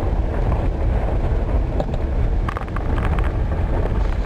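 Van driving slowly: a steady low rumble of engine and road noise with a little wind on the microphone, and a few light clicks and rattles.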